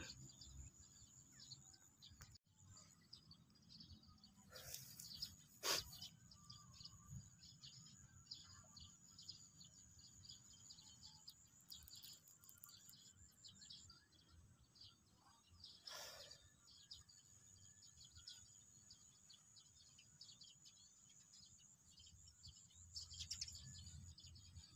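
Faint outdoor ambience of small birds chirping constantly, with a steady high insect trill through the first half and a few soft knocks about five and sixteen seconds in.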